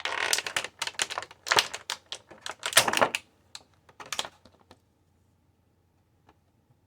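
Rapid clicks and rustles of plastic and cardboard toy packaging being handled while accessories are taken out, stopping about four and a half seconds in.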